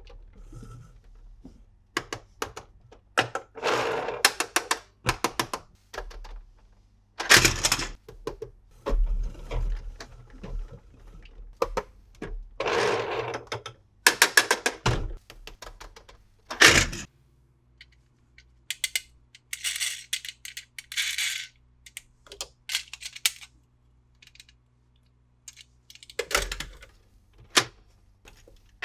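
Plastic toy vehicles and their packaging being handled: scattered clicks, taps and knocks, with several short rustling bursts.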